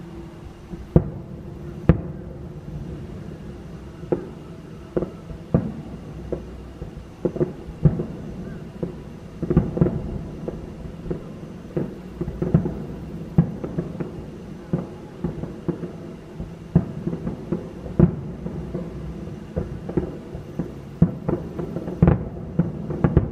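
Aerial firework shells bursting: a long run of sharp bangs at irregular intervals over a steady low rumble, coming thicker from about halfway through.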